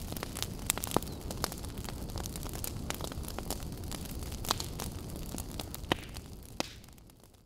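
Large fire burning: a steady low rush with frequent sharp crackles and a handful of louder pops, fading out near the end.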